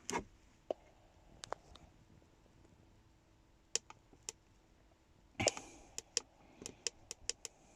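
Control clicks on a CRT Millennium CB radio as its squelch is stepped up: a few scattered single clicks, then a short burst and a quicker run of clicks near the end.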